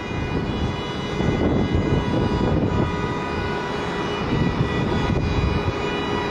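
Jet airliner engines running: a steady rumble under a high whine of several held tones.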